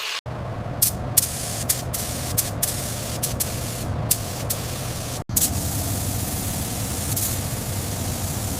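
Steady spraying hiss over a low motor hum, with scattered sharp ticks; it cuts out abruptly for an instant about five seconds in.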